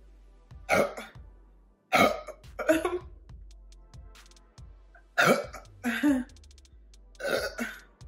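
A woman's short, harsh throat sounds, about six of them in close pairs, as she struggles with a stomach full of fizzy soda.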